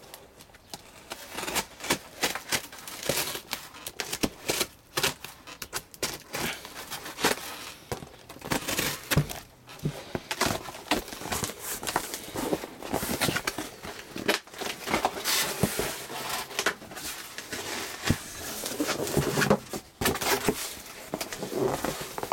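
A cardboard shipping box being cut and pulled open: a blade scraping and slicing through the box tape, with tape tearing and the cardboard flaps rustling and scraping in an irregular run of short sharp sounds.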